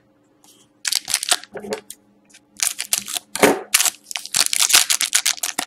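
Foil wrapper of a Panini Select hockey card pack crinkling as it is picked up and handled, a run of crackles and rustles that grows denser in the second half.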